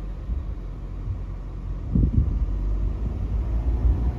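Low rumble of a car on the move, with wind buffeting the microphone more strongly from about halfway through.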